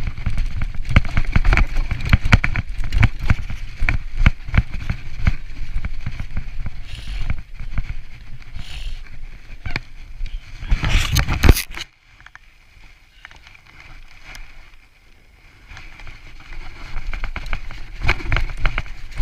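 Mountain bike rattling and knocking over rough, snow-covered ground, with a loud flurry of jolts about eleven seconds in. It then goes much quieter for about four seconds before the clatter builds again.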